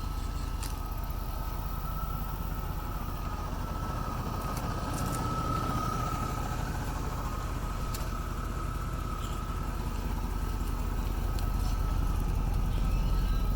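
2002 GMC Sierra 2500HD pickup's engine idling steadily, with a thin, steady high whine over the low rumble.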